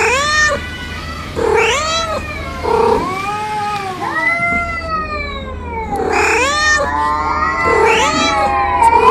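Domestic cats yowling at each other in an argument: a run of long, drawn-out yowls that rise and fall in pitch, with two voices overlapping in the second half.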